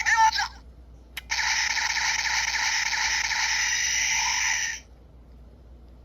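Gashapon Dangerous Zombie Gashat toy playing its weapon finisher sound effect through its small speaker: a short electronic burst, a click about a second in, then a steady, thin explosion sound for about three and a half seconds that cuts off suddenly.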